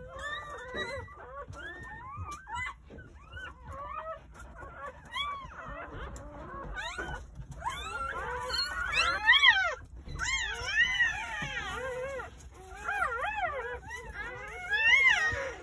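Newborn Jindo puppies crying: many short, high squeals that rise and fall in pitch, one after another, growing louder about nine seconds in and again near the end.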